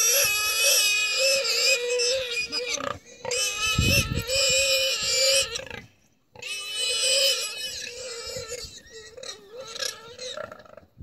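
Warthog squealing in distress as African wild dogs pull it down and feed on it. The squeals are long, high and wavering, with short breaks about three and six seconds in, and grow weaker near the end.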